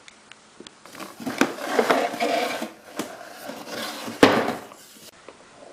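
A toy and its box being handled: rubbing and clattering with many small clicks, and a sharp knock about four seconds in.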